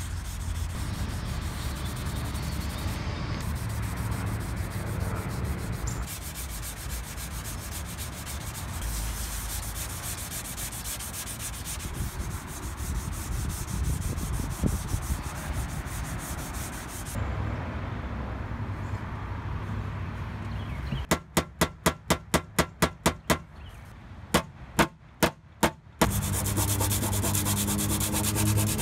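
320-grit sandpaper wrapped around a sponge, rubbed by hand over a car's painted steel body panels: a continuous run of quick back-and-forth sanding strokes. About three-quarters of the way through come separate, louder strokes, about four a second, then four more after a short pause.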